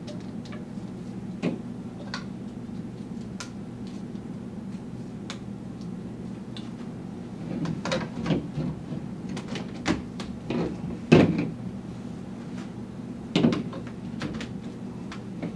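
Plastic pipes and connector fittings knocking and clicking as a pipe-frame chair is pushed together and moved about on a tabletop. The scattered knocks come thickest in the middle, with the loudest about eleven seconds in, over a steady low hum.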